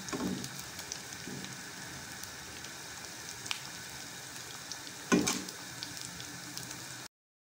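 Cornflour-coated potato sticks deep-frying in hot oil in a kadai over a high flame: a steady sizzle of vigorous bubbling. A brief knock about five seconds in, and the sound cuts off suddenly near the end.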